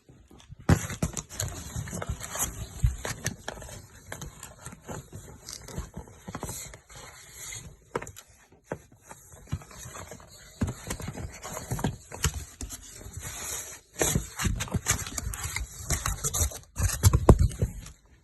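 Dense, irregular knocks, clicks and clatter, with short pauses about eight seconds in and again near fourteen seconds.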